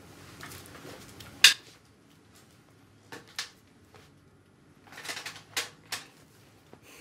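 Scattered short, sharp clicks and taps of makeup tools, a brush tapped and dabbed against a small makeup palette. The loudest click comes about one and a half seconds in, with a few more later.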